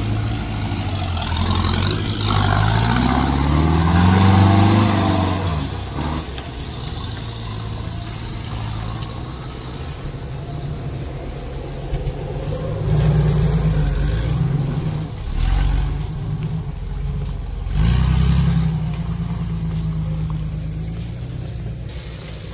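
Off-road 4x4 engine working on a dirt trail, revving up in a rising climb a couple of seconds in and again in several short bursts in the second half as the vehicle crawls over rough ground.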